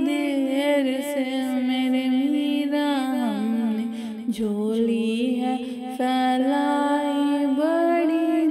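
A woman's voice singing a long, drawn-out wordless melodic line of a devotional song, the pitch sinking lower about three seconds in and rising again near the end.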